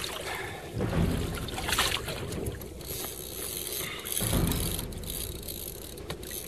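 Wind buffeting the microphone and sea water sloshing against a kayak's hull as a hooked fish tows it along, with two stronger gusts, about a second in and again past the middle.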